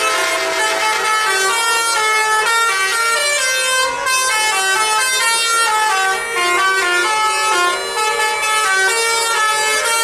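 Bus telolet horn: a set of tuned air horns on a coach playing a fast melody, several tones sounding together and stepping up and down in pitch several times a second.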